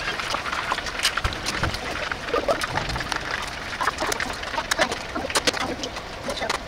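A pot of hot oil deep-frying food, bubbling with a dense, irregular crackle of small pops.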